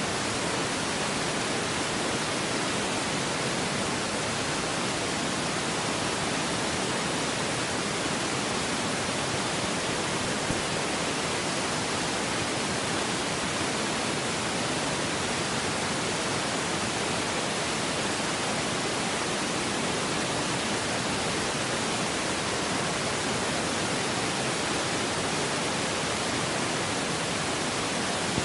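A steady, even hiss like static, unchanging in level or pitch, with no other sounds in it.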